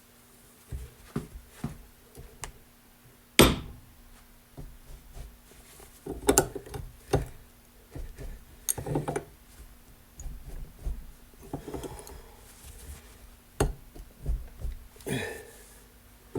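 Scattered metal clanks and knocks of wrenches and a pipe extension being fitted and worked on a tight mower-deck spindle shaft, the loudest about three and a half seconds in, over a faint steady hum.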